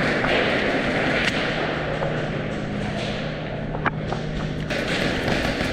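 A few sharp cracks of airsoft gunfire, two of them close together, over steady background noise.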